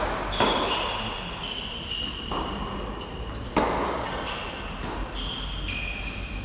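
Tennis ball struck by rackets on an indoor hard court, two sharp hits about three seconds apart, each echoing through the large hall. Between them come high squeaks from shoes on the court.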